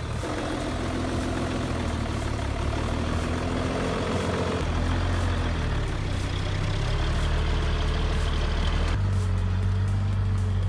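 Six-wheel-drive truck's engine running steadily under load off-road, its note changing about four and a half seconds in and again near the end.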